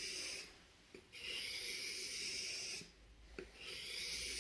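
Carbon steel knife blade drawn across a wet sharpening stone in slow, even strokes, a steady scraping rasp for about a second and a half each with short pauses between: one stroke finishing just after the start, a full one about a second in, and another starting past three seconds in. The strokes are touching up the tip of the edge.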